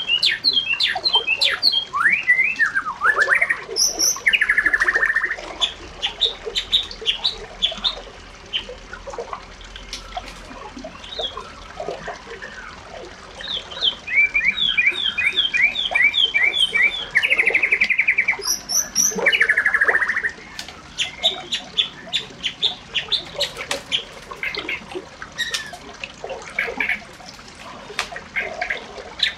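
Birds chirping and calling, with quick runs of repeated notes and several buzzy trills.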